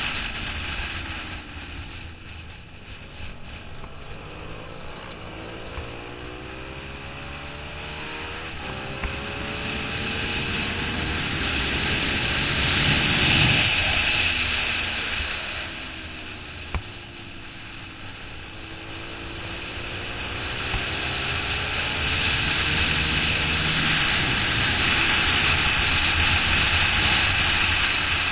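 Onboard sound of a 2008 Suzuki SV650's 645 cc V-twin at racing speed, with heavy wind rush. The engine eases off twice for corners, then climbs through the gears in a run of rising sweeps, the wind noise swelling as speed builds.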